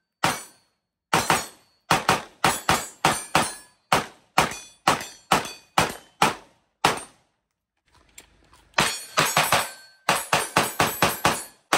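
Rapid semi-automatic fire from an AR-15-type rifle: a long string of sharp shots at about three a second. Firing pauses for nearly two seconds a little past the middle, then resumes at the same pace.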